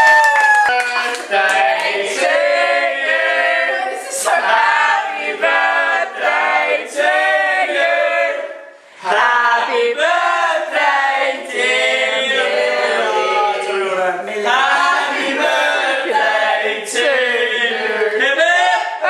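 Vocal music: several voices singing together in a choir-like blend, with almost no bass. It drops out briefly about nine seconds in.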